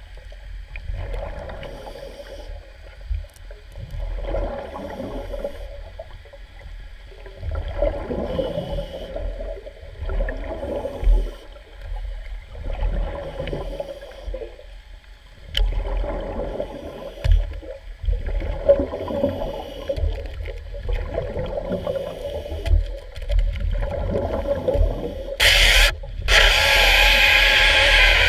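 Underwater sound of a Stanley CS-06 hydraulic chainsaw cutting a wooden piling: a low grinding rumble with a rough gurgling sound that swells and fades about every two seconds. About three seconds before the end a much louder hissing rush comes in.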